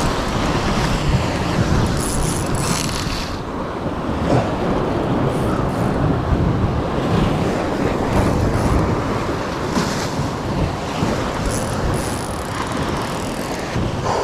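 Steady rushing noise of wind on the microphone mixed with sea surf washing against the rocks.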